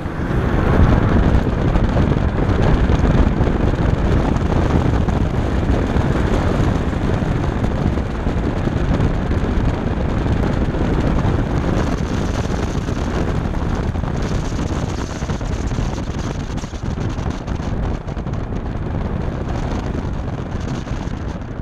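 Heavy wind buffeting on an outside-mounted camera microphone, over a BMW F10 535i's turbocharged straight-six and tyres running hard through an autocross lap. The rush is loudest about a second in and eases a little toward the end.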